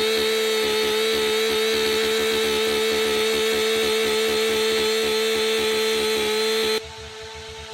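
Gasoline chainsaw running at steady high speed, its engine note held level, then cut off abruptly about seven seconds in, leaving a fainter background.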